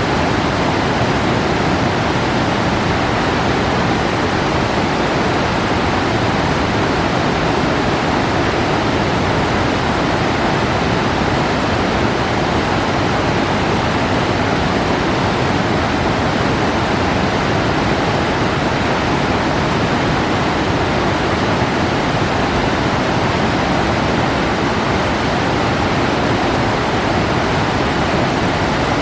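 Water of the Chute à Morin falls on the L'Assomption River rushing and pouring steadily, a loud, even roar of falling water.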